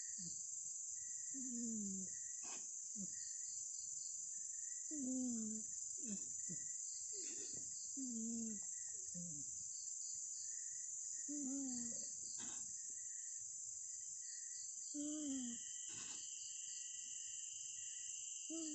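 Sleeping cat snoring: a short snore that falls in pitch every few seconds, about six in all. Crickets chirr steadily underneath.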